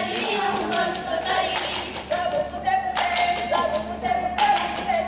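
Group of Saman dancers singing a chant in unison while clapping together in a quick, driving rhythm.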